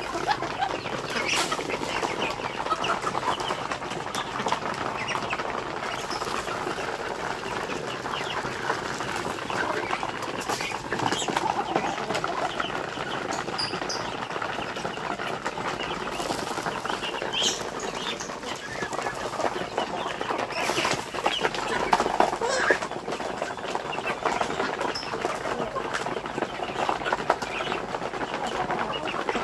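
A crowded flock of village chickens and Muscovy ducks feeding together: steady clucking and chatter, many quick pecking clicks, and wings flapping now and then. There are a few louder squabbling moments about two-thirds of the way in.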